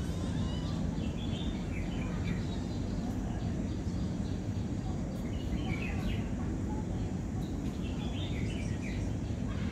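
Birds chirping in short spells about four times over a steady low outdoor background rumble.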